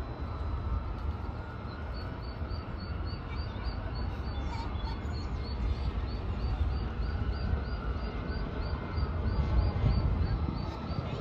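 Mallard duckling peeping, a thin high peep about twice a second, the contact call of a duckling separated from its mother. Under it runs a steady low rumble.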